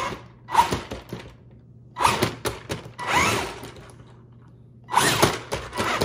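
Ruko Q111 RC tank's electric drive motors whining up in three short full-throttle bursts as its tracks run on a wooden tabletop.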